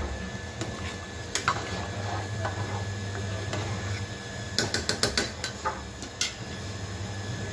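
A spoon clinking and scraping against an aluminium cooking pot while stirring sambar, with a quick run of clinks about four and a half seconds in, over a steady low hum.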